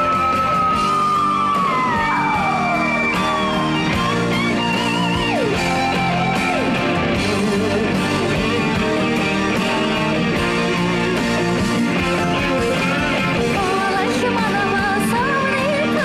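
A woman singing a pop song into a microphone over backing music. She holds one long high note that slides down in pitch about two seconds in, then sings on in shorter phrases over the band.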